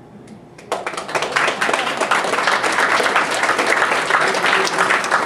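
An audience applauding, many hands clapping at once, breaking out a little under a second in.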